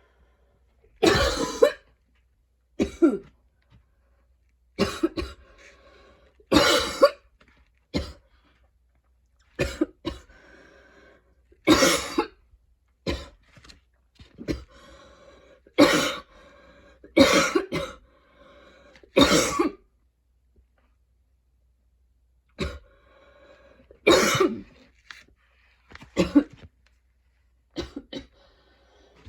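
A woman in a coughing fit: repeated hard coughs, singly and in pairs, a second or two apart, with a drawn-out pitched sound on the breaths between some of them. It is a painful, choking coughing attack, which she puts down to going to the gym two days in a row.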